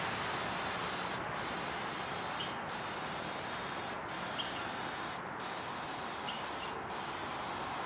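Aerosol case lube sprayed over a tray of upright brass rifle cases to lubricate them before sizing: a steady spray hiss, briefly broken about every second and a half as the can is swept back and forth.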